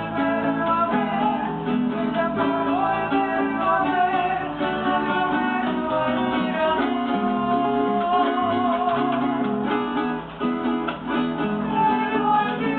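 Voices singing a song, a woman's voice to the fore, accompanied by an acoustic guitar and a small guitar-like instrument, plucked and strummed.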